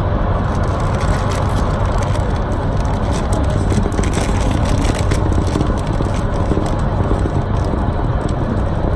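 Steady low rumble of a car's cabin noise, with scattered short crisp crackles over it.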